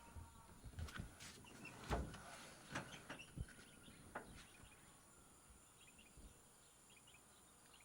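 Near silence: a handful of faint, sharp knocks and clicks in the first half, then quiet with faint high chirping in the background.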